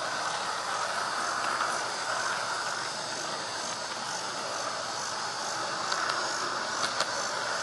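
G-scale garden railway train running along its track, heard from a camera riding on board: a steady running hiss, with a few short clicks near the end.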